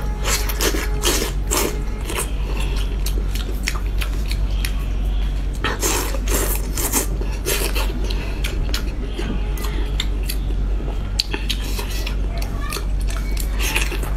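Close-up eating sounds: wet chewing, sucking and lip-smacking as a person bites into sauce-coated braised food, with many short, sharp smacks throughout. A steady low hum runs underneath.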